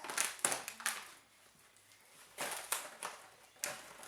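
Plastic toy packaging crinkling and rustling in several short bursts as it is handled and pulled open.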